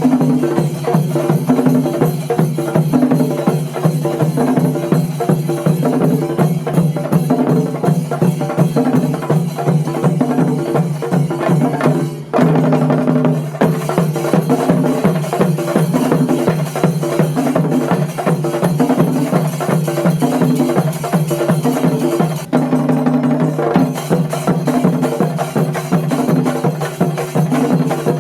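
Music driven by fast, dense drumming, with a steady low drone and a repeating melodic figure over it; it dips briefly about twelve seconds in and again about twenty-two seconds in.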